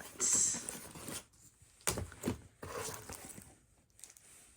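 Cardboard packaging being handled as the cutting mat is pulled out of the box: a sliding, scraping rustle at the start, then two sharp knocks about two seconds in, and softer rubbing after.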